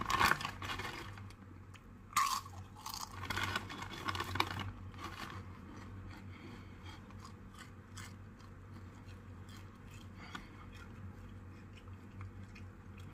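Crunchy ghost pepper tortilla chip being bitten and chewed close to the microphone, with dense crunching for the first five seconds or so that then thins to quieter, scattered chewing.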